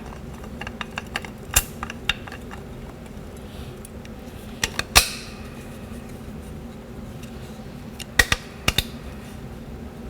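Steel parts of a 4L60E transmission input drum clicking and clinking as the clutch pack is assembled by hand: scattered light ticks, a sharp metallic clack about halfway through that rings briefly, and a quick run of four clacks near the end.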